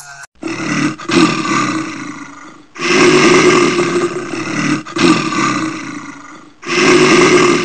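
Tyrannosaur roar sound effect: four long, loud roars one after another, with brief gaps between them.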